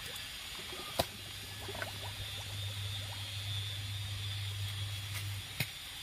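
Shallow stream water lapping and trickling as a hand moves in it, setting a plastic-bottle fish trap. Two sharp clicks cut through, about a second in and near the end.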